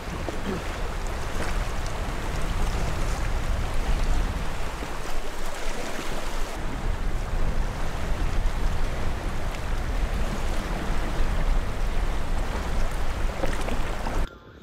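Rushing river water and wind rumbling on the microphone while floating downriver on a raft, a steady loud noise that cuts off suddenly near the end.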